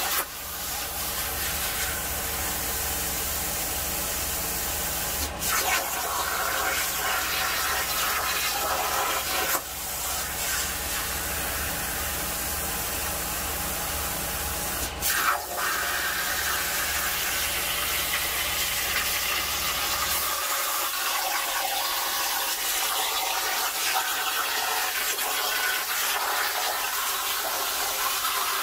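Jasic CUT 45 plasma cutter on a CNC table cutting sheet metal: a steady loud hiss of the arc and air stream, broken three times by short breaks as the torch stops and restarts between cuts.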